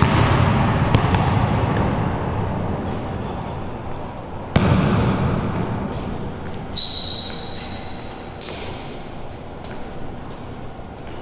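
A basketball bouncing on a hard indoor court floor, each bounce echoing off the bare walls, with one hard bounce about halfway through. Later come two long, high squeaks of sneaker soles on the court floor.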